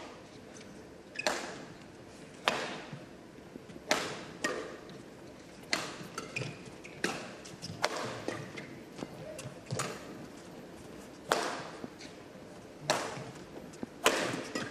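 Badminton rackets striking a shuttlecock back and forth in a long doubles rally: a dozen or so sharp, short cracks, roughly one every second or so, unevenly spaced.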